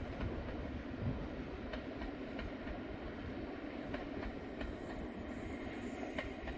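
Carriages of the Jacobite steam train rolling along the track: a steady low rumble with sharp wheel clacks, one every half second to a second.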